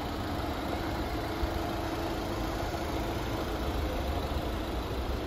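Fiat Ducato Multijet 130 turbo-diesel engine idling steadily.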